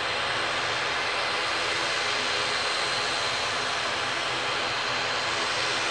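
Airplane engines running steadily: a constant rush with a thin, steady high whine over it.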